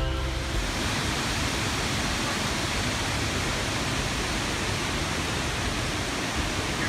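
Large waterfall plunging over a cliff into a pool, a steady, even roar of falling water.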